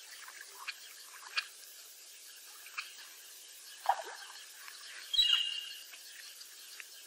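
Duck calls: scattered short calls, one falling in pitch about four seconds in, and a louder, drawn-out higher call about a second later, over a faint steady hiss.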